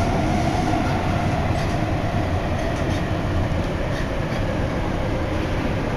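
Osaka Metro Nagahori Tsurumi-ryokuchi Line linear-motor subway train running between stations, heard from inside the car: a steady rumble with a motor whine that drifts slowly lower in pitch.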